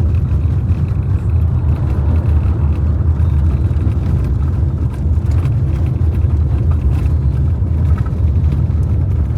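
Car driving along a road: a steady, loud low rumble of engine and road noise.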